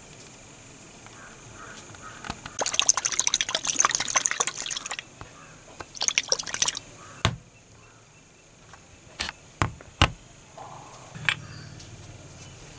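Gloved hands handling a small glass bottle on a wooden tabletop: a long spell of crackly rustling and clicking, a shorter one, then a handful of sharp taps and knocks of glass on wood.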